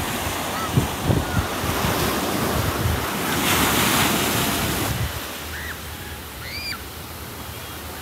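Ocean surf rushing with wind, and wind buffeting the microphone in gusts. The rush swells about three and a half seconds in and eases off after five seconds.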